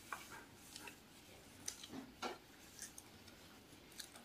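A few faint, sharp crackles and clicks at irregular intervals as a crusty-topped bun is broken apart by hand and eaten.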